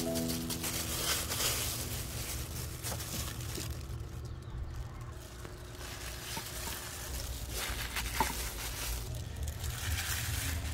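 Thin plastic food gloves crinkling and rustling as hands squeeze and pat soft pounded banana mash into patties, over a steady low background rumble.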